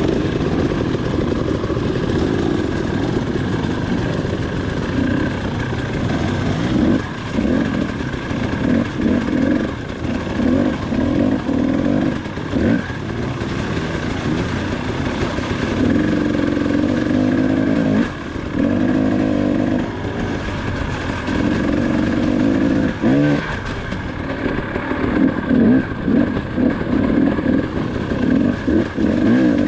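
KTM 300 XC-W two-stroke single-cylinder dirt bike engine running under a working throttle, revving up and falling back in short surges every second or so.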